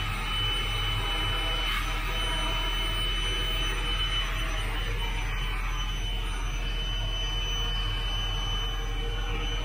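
Portable vacuum cleaner running steadily with a thin high whine, sucking dirt off a machine cab's floor.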